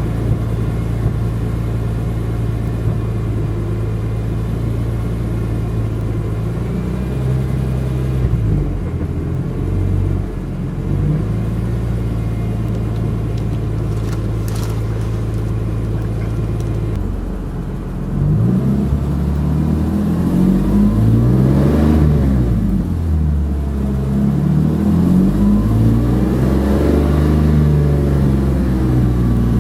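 BMW E46 M3's S54 inline-six engine running at a steady speed, with brief wavers in pitch, then from about 18 seconds in revved up and down repeatedly.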